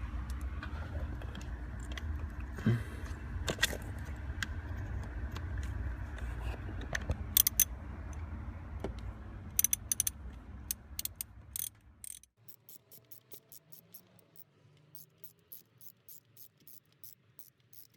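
Metal tool clinks and the clicking of a hand ratchet turning a Phillips-bit socket to drive in a screw. The clicks are scattered over a steady low rumble at first. About twelve seconds in, the rumble drops away and a run of quick, even ratchet clicks follows.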